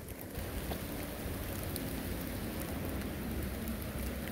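Steady rain hiss, rain falling on water and wet ground, over a low rumble; the hiss grows fuller about half a second in.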